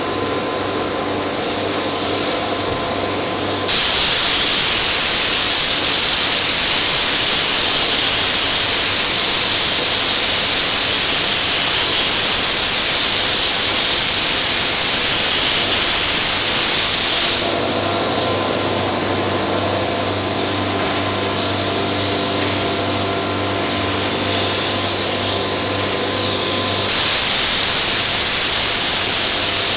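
Compressed-air paint spray gun hissing as it lays on paint in long passes. It is loud from about four seconds in, eases off for about ten seconds past the middle, and is loud again near the end. In the quieter stretches a steady machine hum with a low tone comes through.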